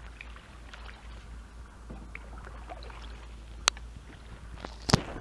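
Canoe paddling: faint scattered clicks and light water sounds over a low wind rumble on the microphone, with a sharp click about three and a half seconds in and a loud knock near the end.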